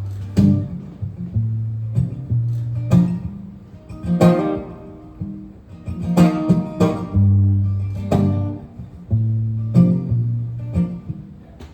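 Acoustic guitar playing a song's instrumental intro: strummed chords over held low notes.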